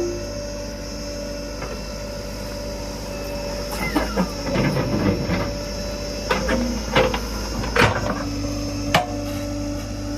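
Backhoe loader's engine running steadily with a faint whine over it, broken by irregular sharp knocks and clanks: a cluster about four seconds in, then single knocks every second or so.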